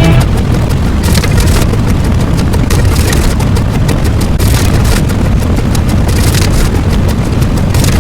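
Loud, continuous rumbling noise with no clear tone, heaviest in the bass.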